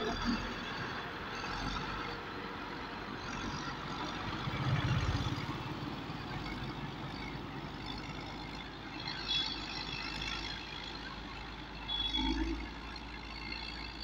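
Caterpillar motor grader's diesel engine running steadily as the grader drives over and spreads crushed stone with its blade, with two brief louder swells, about five seconds in and near the end.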